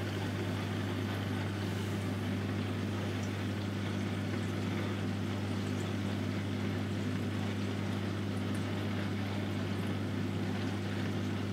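Steady electric hum of a reef aquarium's water pumps, with an even hiss of moving water.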